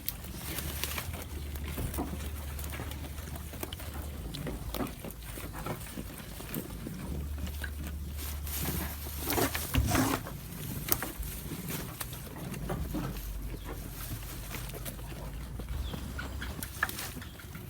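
Goat chewing its food, a run of irregular crisp crunches, loudest about ten seconds in.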